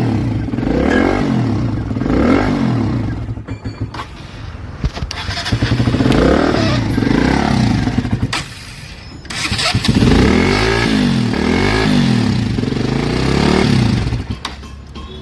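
KTM motorcycle engine running and being revved in repeated blips, each rev rising and falling in pitch. The sound drops away twice, about four seconds in and again near nine seconds, before it picks up again. It is running after a repair to the ECM (engine control unit) for a starting fault.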